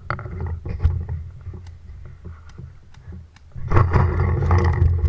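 Rumbling wind and movement noise on a head-mounted camera's microphone, with scattered sharp pops of paintball fire; the noise swells about four seconds in.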